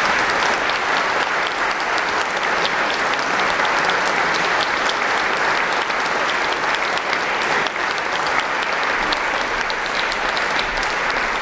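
Audience applause: many people clapping steadily, with single claps standing out from the dense patter.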